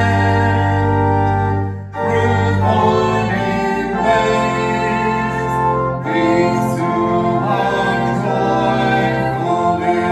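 Church music: singing over instrumental accompaniment, in long held notes, with a brief break about two seconds in.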